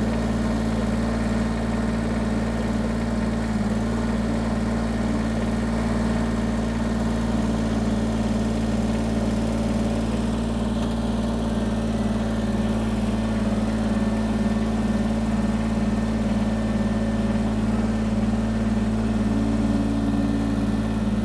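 Kubota BX compact tractor's three-cylinder diesel engine running at a steady, unchanging speed.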